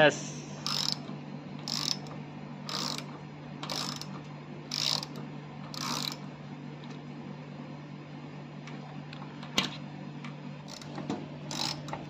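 Ratchet socket wrench clicking in short bursts about once a second as it backs out a washing machine's transport bolts. The clicking pauses for a few seconds about halfway, then a single sharp click and a few more bursts near the end. A steady low hum runs underneath.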